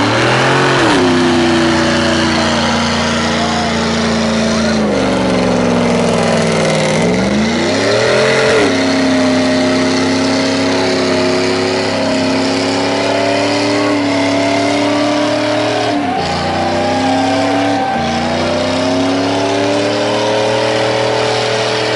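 Chevrolet Silverado pickup doing a burnout: the engine revs up and is held at high revs over the steady hiss of its spinning tyres. The revs drop and climb back twice, about a quarter and about three quarters of the way through.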